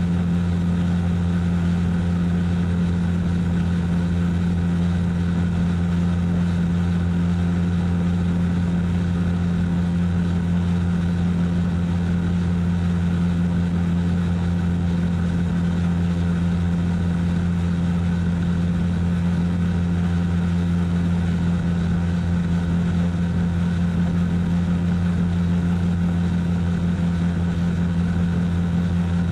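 Radio-controlled model helicopter heard close up from a camera mounted on it: motor and rotors running at a steady, unchanging drone as it hovers and creeps along.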